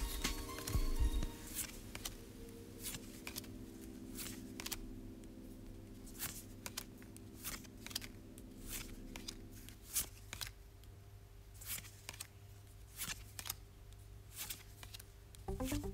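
Yu-Gi-Oh trading cards being slid one at a time off the front of a hand-held stack, each a short papery flick or snap, coming irregularly about once every half second to a second.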